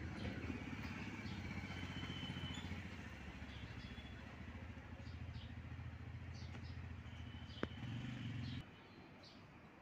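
A steady low motor or engine hum that cuts off suddenly near the end, with one sharp click shortly before it stops and faint high chirps scattered through.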